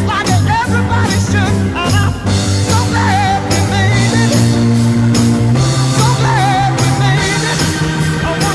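Rock music with a singing voice over a steady beat and held bass notes.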